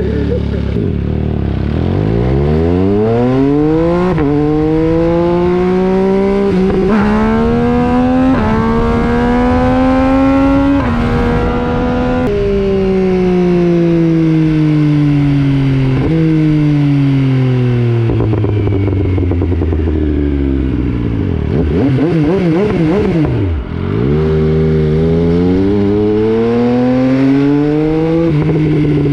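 MV Agusta Brutale 800's inline three-cylinder engine through an FM Projects aftermarket exhaust, under way on the bike. It accelerates hard through several gears, its pitch climbing and dropping back at each upshift. It then backs off into a long falling note as the bike slows, pulls hard again and backs off near the end.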